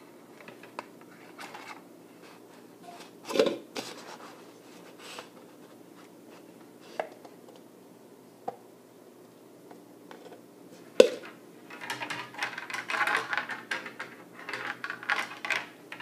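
Handling sounds of a stiff wire and a plastic cup being worked by hand: scattered small clicks, two sharp knocks, one about a third of the way in and one about two-thirds in, then steady scraping and rustling in the last few seconds.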